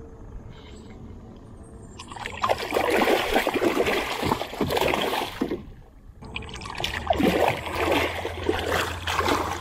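A hooked tarpon of about 7–8 pounds thrashing at the surface against the side of the boat, splashing and throwing water. It comes in two bouts, the first starting about two seconds in and the second about seven seconds in.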